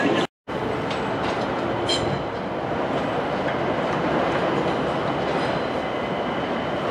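Electric train running on the tracks: a steady rumble of wheels and running gear, with a faint thin high tone held from about two seconds in. The sound cuts out for a moment just after the start.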